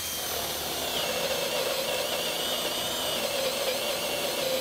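Cordless drill spinning a Forstner bit through a wooden cabinet door, boring the cup hole for a concealed European hinge through a hinge jig. A steady whirr with a high whine that wavers slightly as the bit cuts.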